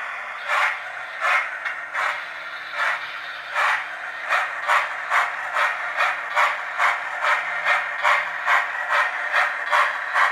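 Hornby Lord Nelson model locomotive's sound decoder playing steam exhaust chuffs through its small onboard speaker. The chuffs start slow and quicken steadily as the locomotive pulls away. A faint steady hum runs underneath.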